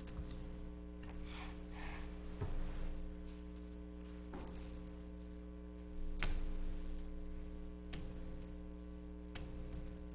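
Quiet meeting-room tone with a steady electrical mains hum, broken by a handful of small, sharp clicks and taps, the loudest about six seconds in.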